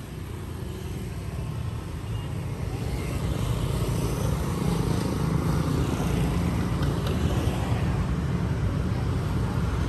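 Street traffic: motor scooters and motorcycles passing, a steady engine and road rumble that fades up over the first couple of seconds.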